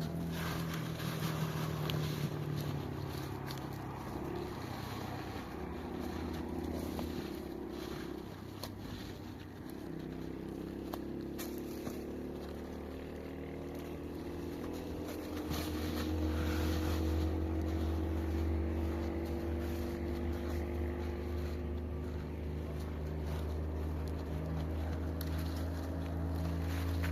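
An engine running steadily, its pitch slowly rising over the second half.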